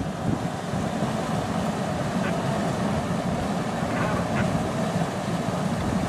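Wildebeest herd crossing a river: a steady din of churning, splashing water from the mass of animals, with a few scattered honking grunts from the wildebeest.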